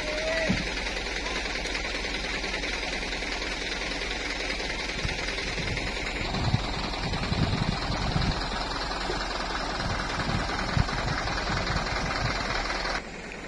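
Diesel engine of a heavily loaded Mitsubishi Fuso truck running steadily on a soft muddy climb, with a few low thumps from about five seconds in. The sound drops off abruptly near the end.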